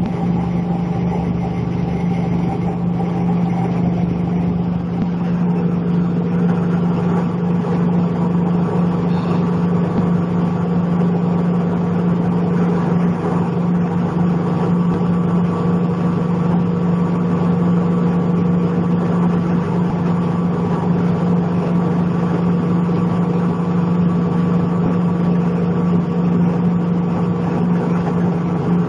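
PE plastic film agglomerator running steadily: its motor and spinning cutter drum give a constant hum with a few fainter, higher steady tones.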